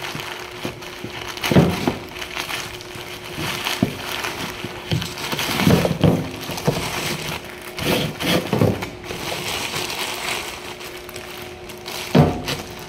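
Plastic mailer bag and small clear plastic bags crinkling and rustling as a parcel is torn open and unpacked, with several dull knocks as items are handled and set down on the concrete surface.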